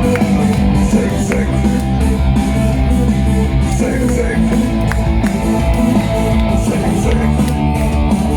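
Live rock band playing an instrumental passage: electric guitar over bass and drums, with cymbals keeping a steady beat.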